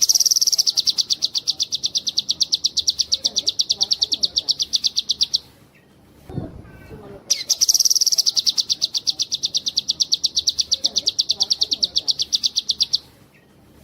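Cucak kinoi singing two long, fast trills of evenly repeated high notes, each about five seconds long, with a short pause between them. A brief low thump comes in the pause.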